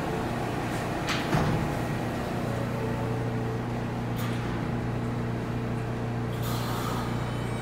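R160 subway car standing at the platform with a steady hum from its equipment. About a second and a half in there is a knock as the sliding doors close, and near the end a short hiss of air just before the train departs.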